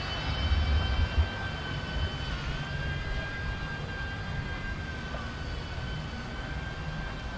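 A steady high-pitched mechanical whine that dips briefly in pitch about two and a half seconds in, over a low rumble with gusts of wind on the microphone early on.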